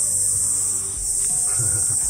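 A steady, high-pitched chorus of buzzing insects that runs without a break, with soft background music beneath it.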